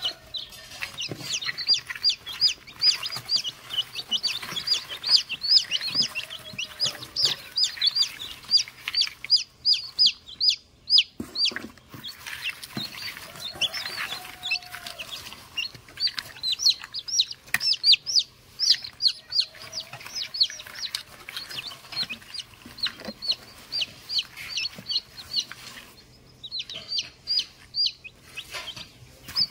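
A box of newly hatched chicks peeping nonstop: many short, high-pitched cheeps overlapping, each dropping in pitch, easing off briefly a couple of times.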